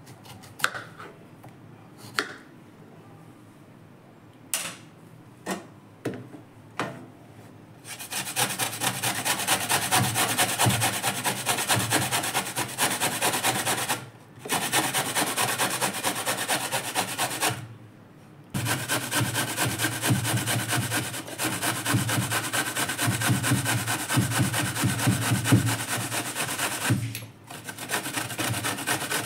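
A few sharp clicks of a knife on a bamboo chopping board as a raw green mango is cut. Then the raw mango is grated on a stainless steel box grater: steady rasping strokes, stopping briefly three times.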